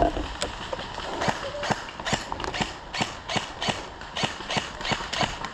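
Steady footsteps of a player on the move, about three a second, starting after the first second.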